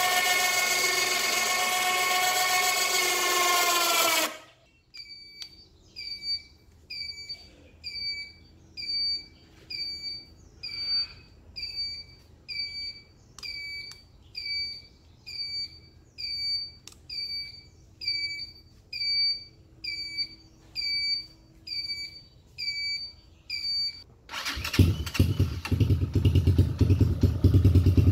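Electric ATV winch motor whining as it winds in its cable, slowing and stopping about four seconds in. Then a short electronic beep repeats about once a second for some twenty seconds, and near the end the quad bike's 250cc engine starts and runs.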